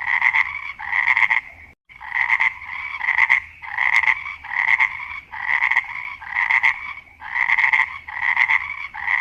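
Frog croaking over and over in a steady rhythm, about one rasping croak every two-thirds of a second.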